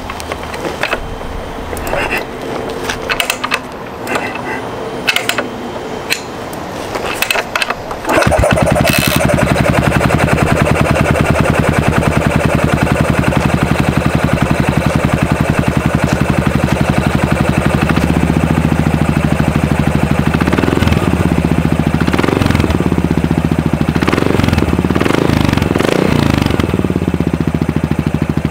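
Yamaha SR400's 399 cc single-cylinder four-stroke being kick-started: several seconds of kicks and mechanical clicks, then it catches about eight seconds in and settles into an even idle through a Motolanna steel reverse-cone silencer. About two-thirds through, the throttle is blipped five or so times in quick revs before it drops back to idle.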